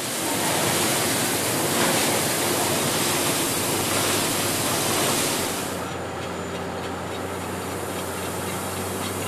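Iron ore handling machinery at a stockpile: a loud, steady rushing of ore pouring and machinery running. About six seconds in it drops to a quieter, steady low machine hum.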